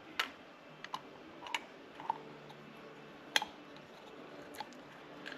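Scattered light clicks and taps of small metal carburetor parts and tools being handled while taking apart a Solex 34 PICT-3 carburetor, as the float that is stuck in its gummy bowl is worked at. The clicks come irregularly, about eight or nine in all, the sharpest about three and a half seconds in.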